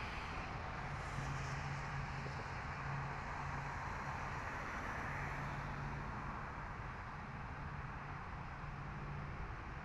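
Steady wash of nearby freeway traffic noise, even and unbroken, with a low hum underneath.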